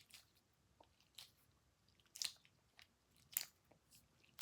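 A gold glitter dumpling squishy toy being squeezed by hand: a few faint, short crackly squishes, the clearest about two and three and a half seconds in.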